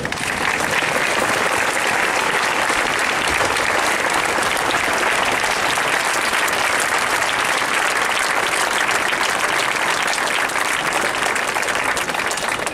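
Large crowd applauding steadily, the clapping rising sharply about half a second in and holding at an even level throughout.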